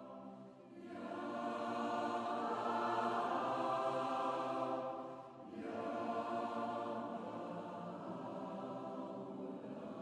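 Choir singing long, sustained chords in two phrases: the first swells to its loudest about halfway through, breaks off briefly, then a second phrase carries on more evenly.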